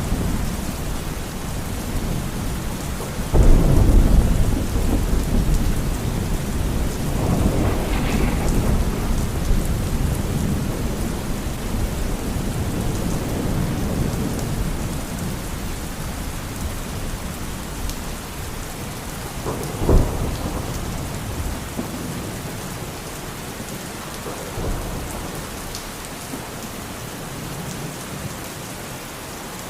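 Steady rain during a thunderstorm. Thunder rolls through it: a loud low rumble about three seconds in, another a few seconds later, a sharp crack about two-thirds of the way through and a smaller one soon after, with the storm easing off near the end.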